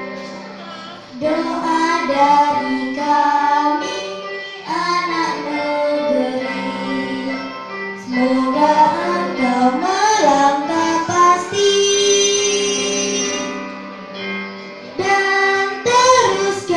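A young girl singing a solo through a microphone over a steady keyboard accompaniment, with one long held note about twelve seconds in.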